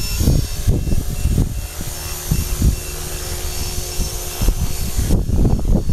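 Electric Align T-Rex RC helicopter hovering low, its motor and rotor giving a steady whine and hum. Gusts of wind rumble on the microphone about the first second and again near the end.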